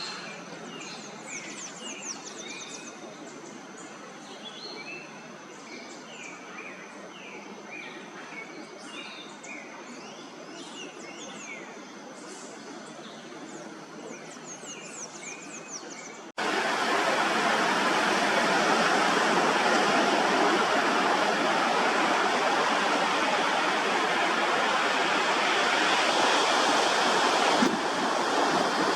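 Several birds chirping and singing over a steady hiss and a thin high tone. About sixteen seconds in it cuts abruptly to loud, steady rushing water.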